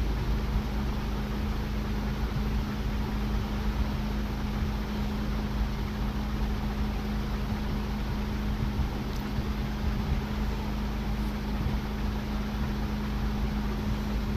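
Steady mechanical hum with one constant low tone and a low rumble beneath it, holding even throughout.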